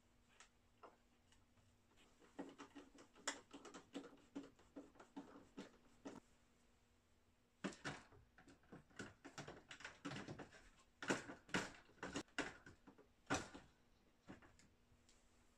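Irregular light clicks and taps of plastic and metal as an IKEA HOPPVALS cellular blind's headrail and mounting brackets are handled and the headrail is pressed up into the brackets. The clicks come in two clusters with a short pause between them, and the loudest fall in the second half.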